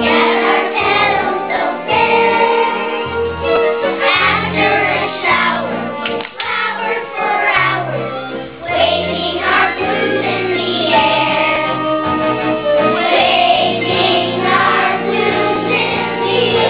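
Children's chorus singing a song together, over steady held low notes of an instrumental accompaniment.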